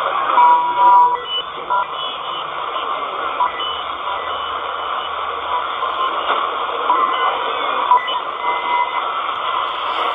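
Loudspeaker audio of a Malahit-clone DSP SDR shortwave receiver in lower sideband, tuned across the 40 meter amateur band: a steady hiss of band noise with brief whistles of carriers coming and going as the frequency changes.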